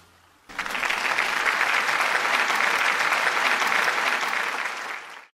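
Audience applauding at the end of a song, starting suddenly about half a second in and cutting off abruptly near the end.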